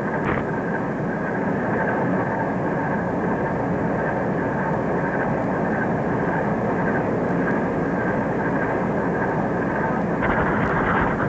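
Steady mechanical drone, engine-like, with a faint steady tone. About ten seconds in a pen starts scratching on paper over it.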